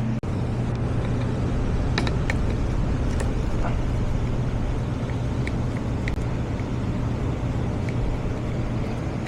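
Steady low hum of the running HVAC system, with a few light clicks and taps from handling the damper motor and its parts.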